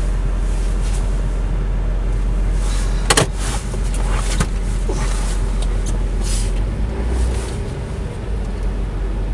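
Car cabin noise while driving: a steady low rumble of road and engine, with a sharp click about three seconds in.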